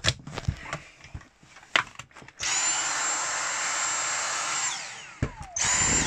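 A few clicks and knocks of handling, then a Dyson V6 cordless handheld vacuum's motor starts with a trigger pull and runs with a steady high whine and rush of air for about two seconds. When the trigger is released the motor spins down with a falling whine, and near the end it starts up again.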